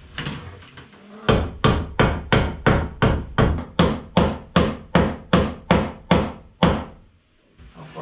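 A hammer striking into wooden wall framing in a steady run of about sixteen sharp blows, roughly three a second, as a fastener is driven home.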